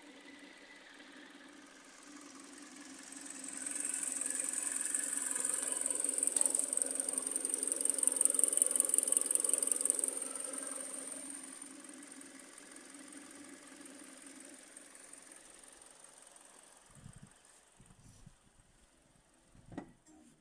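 Hyundai/Kia G4NA 2.0-litre petrol engine running with a foreign knocking noise that appeared 1500 km after a rebuild. A loud, high, rapid ticking builds from about three seconds in and fades after about eleven seconds. A few thumps come near the end.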